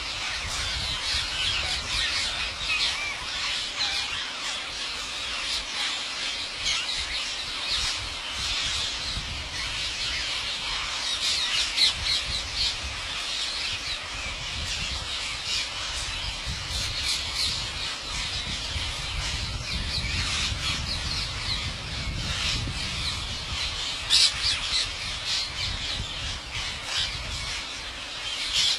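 A flock of parrots squawking and chattering without pause, many harsh high calls overlapping, with a low rumble underneath.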